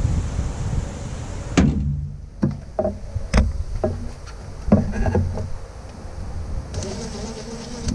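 Wind rumbling on the microphone, then a string of sharp clicks and knocks from a cordless driver worked on a fastener at the engine's intake, with a few short low hums.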